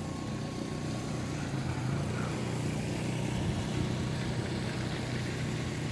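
Steady low hum of car traffic running, with a faint even hiss over it.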